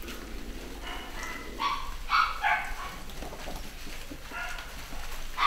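Basset hound puppies yipping in play: a quick run of short, high yips between about one and three seconds in, then a couple more later, the last one the loudest.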